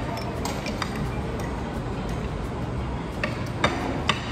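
Cutlery and plates clinking at a dining table: a handful of short clinks, a few near the start and a few more near the end, over a steady low room hum.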